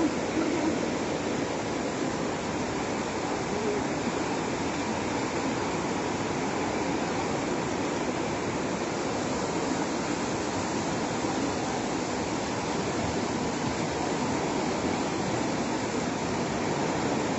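Swollen, fast-flowing flood river rushing steadily.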